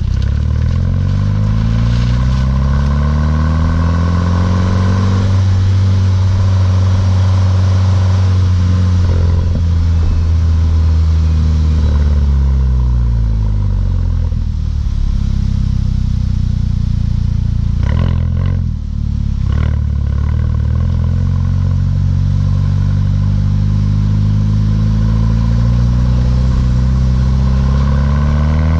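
Mk6 Volkswagen GTI's turbocharged 2.0-litre four-cylinder through a Beluga aftermarket exhaust, under way: the note climbs, holds steady, falls away, breaks off twice in quick succession about two-thirds through, then climbs steadily again.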